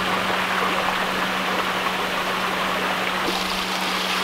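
Water from a rock waterfall pouring into a pool, a steady rushing, with a steady low hum beneath it.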